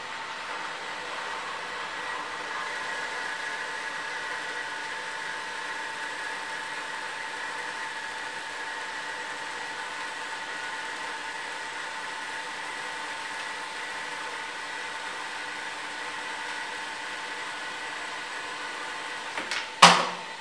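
Clausing Kalamazoo horizontal band saw running with a steady whine as its blade feeds down through an aluminium extrusion. Near the end there is a short, loud clatter as the cut-off piece falls into the catch bucket.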